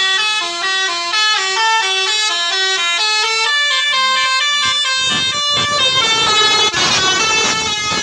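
Multi-tone musical air horn (telolet horn) on a Mercedes-Benz coach, playing a quick melody of short notes that step up and down. From about five seconds in, the coach's engine and running noise rise underneath as it passes close by.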